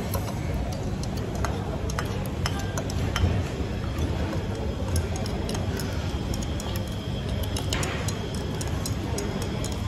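Chopsticks and spoons clicking and clinking against bowls during a meal, many small irregular taps, over the steady hubbub of a busy food court.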